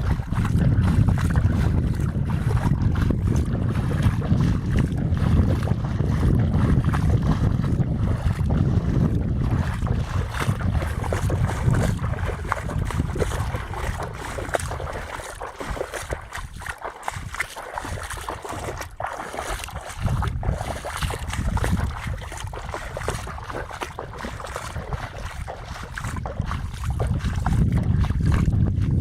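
Wind buffeting the microphone: a gusty low rumble that eases off in the middle and picks up again near the end.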